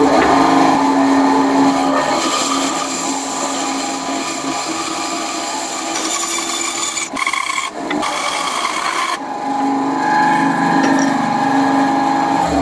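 Benchtop bandsaw running, its blade cutting through a small block of wood, with a steady motor hum under the rasp of the cut.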